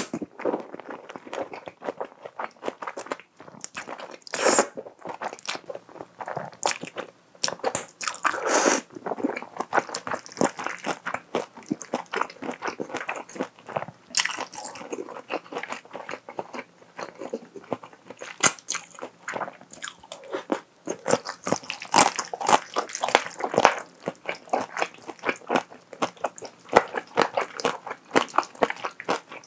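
Close-miked eating of thick fettuccine in a creamy sauce with shrimp: slurping the noodles in and chewing with many small wet mouth clicks.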